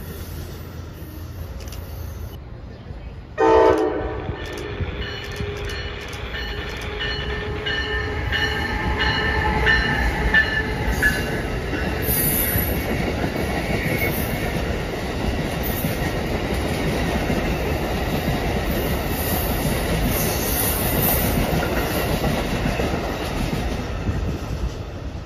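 Amtrak passenger train sounding its horn, starting with a sudden loud blast about three seconds in, the horn's chord lingering more quietly for several seconds. The rumble and clatter of the train passing at speed fills the rest.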